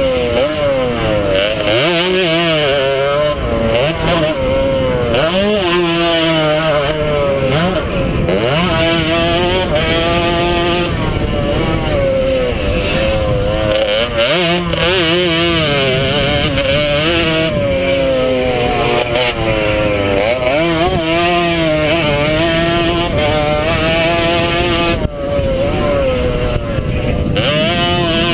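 Small-capacity two-stroke motocross bike engine revving up and falling back again and again as the rider accelerates and shuts off around a dirt track. It is heard from a helmet camera, with wind noise over the microphone.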